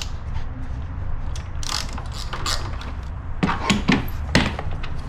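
Scattered clicks and knocks of a wrench working a bolt loose to make room for a relay, a few louder knocks near the middle, over a steady low hum.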